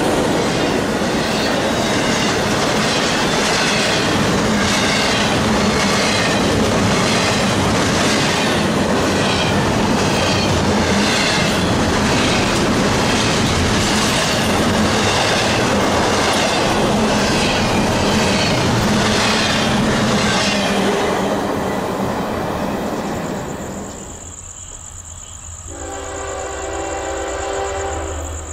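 Freight train of double-stacked container and well cars passing close at speed, its wheels clattering in a regular rhythm about once a second. The train noise fades about three-quarters of the way in, and a diesel locomotive's air horn blows near the end.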